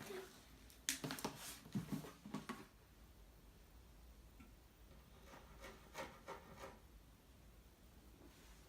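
Faint handling noises: rubbing and light knocks of small objects, a cluster of them about a second in and fainter ones around six seconds.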